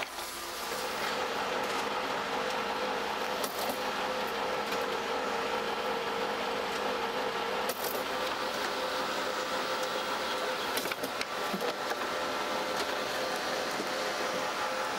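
Colour laser copier running: a steady mechanical whir with a hum that sets in about half a second in, with a few sharp clicks along the way.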